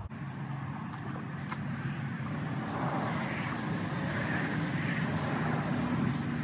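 Steady engine drone in the background, with a few faint clicks in the first couple of seconds.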